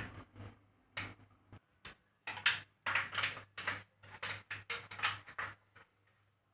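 Irregular rustles, scrapes and knocks of close handling, with a steady low electrical hum underneath. The rustles stop about six seconds in and the hum carries on alone.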